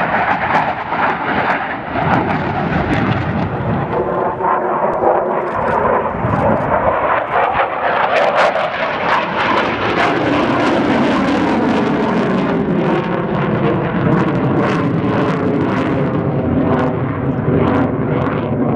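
Fighter jet engine roaring loudly as the jet passes, with a ragged crackle; the roar drops in pitch about ten seconds in as the jet goes by and pulls away.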